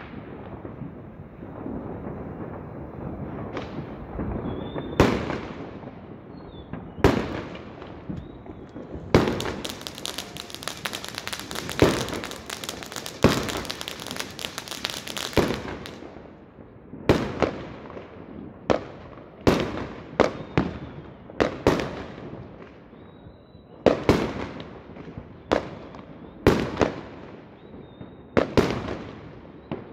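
Fireworks going off: a long run of sharp bangs from shells bursting, with a dense stretch of crackling lasting about six seconds, starting roughly a third of the way in, over a continuous background of more distant bangs.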